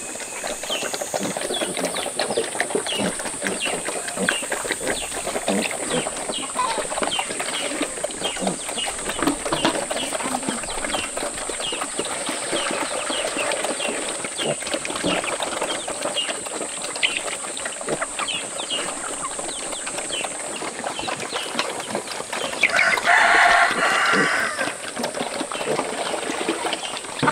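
Pigs eating at a trough with a constant chewing and slurping, with chickens clucking and chicks peeping among them. Near the end a rooster crows loudly once.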